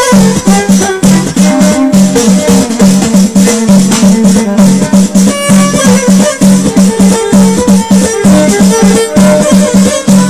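Loud Moroccan Amazigh chaabi music played through a PA speaker, with a dense, fast beat of percussion and steady held notes underneath.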